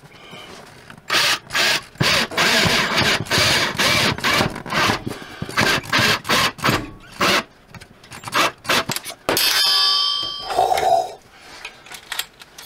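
Ryobi 18V cordless drill/driver driving a mounting screw into the wall in a string of short trigger bursts, stopping and starting. Near the end there is a brief metallic ringing clink.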